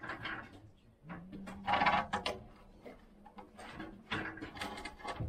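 Irregular knocks and clatter of timber and tools as builders fit wooden roof beams, with a louder burst about two seconds in.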